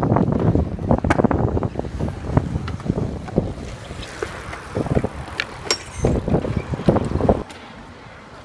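Wind buffeting the microphone over the rumble of a mini BMX's small fat tyres rolling on concrete, with scattered knocks and clacks from the bike. The noise drops sharply about seven and a half seconds in.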